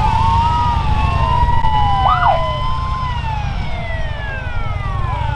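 Several emergency-vehicle sirens wailing at once, their rising and falling tones overlapping, with one quick up-and-down sweep about two seconds in, over a steady low rumble.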